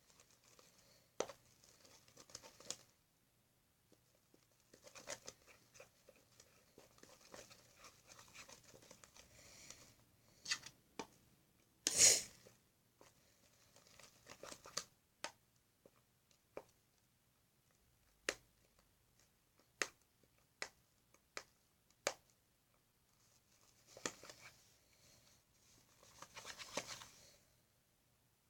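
Intermittent scraping and rustling with sharp clicks and taps while slime ingredients are mixed in a bowl, the loudest a longer scrape about twelve seconds in.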